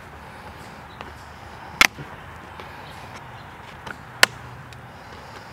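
Diagonal cutters snipping the staples in an old convertible top's stapled seam: two sharp snips about two and a half seconds apart, with a few fainter clicks.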